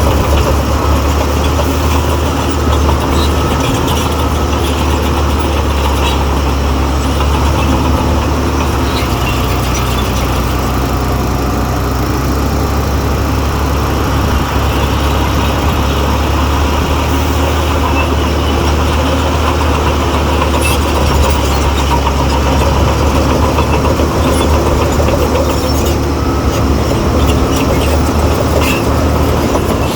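Heavy diesel engine of a crawler bulldozer running steadily, its low engine note dropping for a few seconds about nine seconds in and then picking back up.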